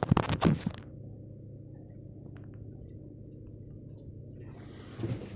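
A few sharp knocks in the first second, then the boat's engine running as a steady low hum, heard muffled with no high end.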